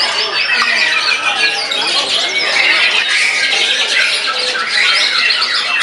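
White-rumped shama (murai batu) singing a loud, unbroken run of fast whistles, chatters and trills, in full song after its moult.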